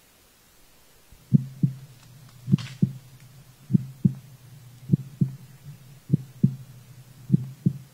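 Heartbeat sound effect: paired lub-dub thumps about once every 1.2 seconds over a low steady hum, starting about a second in.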